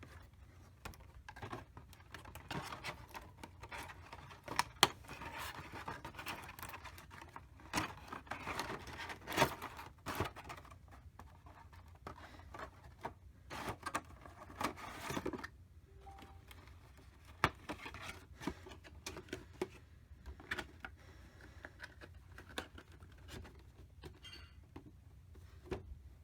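Hands handling a boxed collectible figure and its packaging: scraping, rustling and many sharp clicks, busiest over the first fifteen seconds, then sparser clicks.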